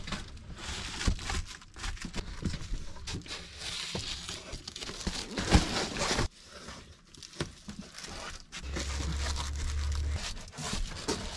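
Van stealth window covers being handled and pressed into the windows: crinkling and rustling with scattered clicks and knocks, dropping off sharply about halfway through. A low steady hum sounds for a second or two near the end.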